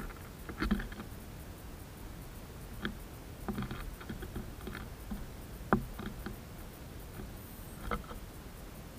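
Great tits landing, hopping and pecking grain on a wooden tray feeder: scattered irregular taps and knocks, the sharpest about two-thirds of the way through.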